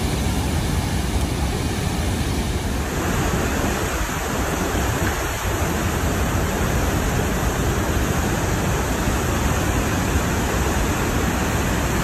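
Tännforsen waterfall in full flow: a steady, dense rush of falling water that does not let up.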